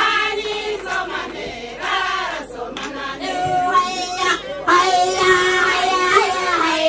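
A group of women singing together in a traditional performance song, several voices holding and bending sustained notes.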